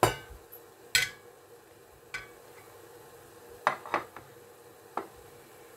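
Stainless steel steamer pots and dishes clinking and knocking as modaks are loaded into the tiers for steaming: a string of about seven sharp metal knocks, the loudest at the start and about a second in, with a quick cluster past the halfway point.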